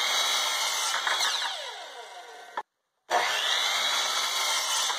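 Electric miter saw cutting through a wooden board, its motor whine falling away as the blade spins down. The sound cuts out briefly just past halfway, then a second run of cutting and spinning down follows.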